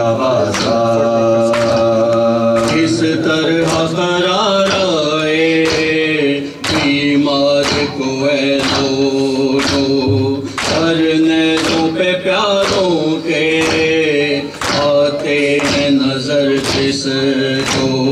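Men singing a noha, an Urdu Muharram lament, with several voices in chorus and no instruments. It is kept in time by rhythmic chest-beating (matam), a sharp slap about twice a second.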